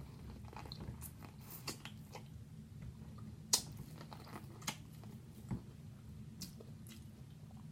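Close-miked eating: chewing with scattered sharp wet mouth clicks and small crunches, the loudest about three and a half seconds in.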